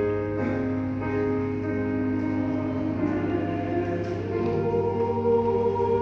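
Church choir singing a hymn in long held chords with piano accompaniment, the chords changing a few times, over a steady low hum.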